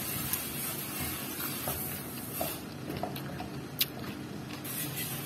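Quiet steady background ambience with a few faint scattered clicks, one sharper click a little before the end.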